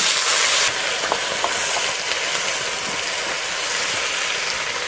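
Freshly added taro-stem pieces frying in hot oil in a kadai, a loud steady sizzling hiss that eases a little about a second in, with a few faint pops.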